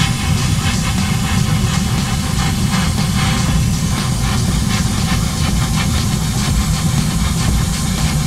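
Airbrush spraying paint: a steady hiss of air over a constant low hum.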